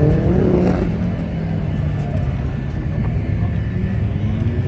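Car engine accelerating, its pitch rising at the start and again near the end, with a steady engine drone between.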